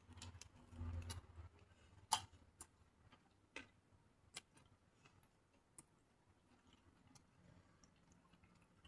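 Near silence broken by a handful of faint, separate clicks and taps of eating, most of them in the first half, the clearest about two seconds in.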